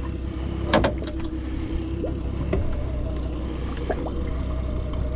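Steady low rumble of wind and water around a small boat with a faint steady hum, and a sharp knock about a second in followed by a few lighter clicks as a freshly caught red snapper is handled and unhooked.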